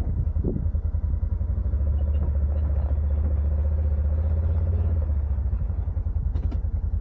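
A motor vehicle's engine running steadily with a low, pulsing rumble that swells a little in the middle, and a brief clatter near the end.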